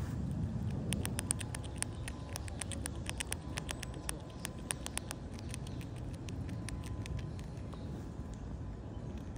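Eastern grey squirrel chewing dry noodle bits held in its forepaws: a quick, irregular run of crisp crunching clicks that thins out about two-thirds of the way through.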